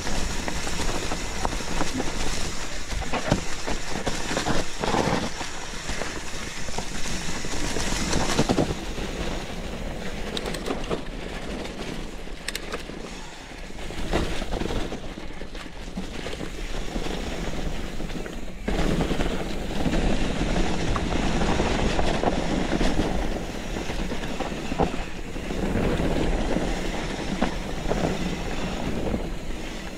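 Mountain bike rolling fast down a dirt forest trail: knobby tyres on dirt and roots, the bike's frame and parts clattering over the bumps, and wind rumbling on the microphone.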